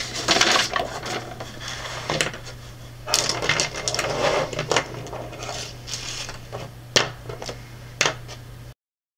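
Bienfang Graphics 360 marker-paper pad being handled: its thin pages rustle and flap as the page is turned over, with a few sharp knocks and clicks of things set down on the table, over a steady low hum. The sound cuts off abruptly near the end.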